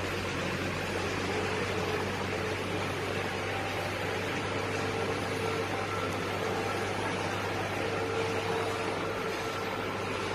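Steady machine noise: a constant low hum under an even hiss, with a faint steady whine that fades in and out.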